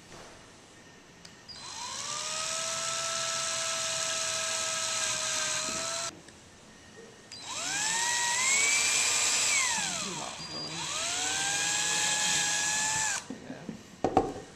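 Cordless Milwaukee drill spinning a small bit into PVC pipe to drill screw holes: two long runs of a steady motor whine, each rising in pitch as it spins up, the second dipping and climbing again midway. A few clicks near the end.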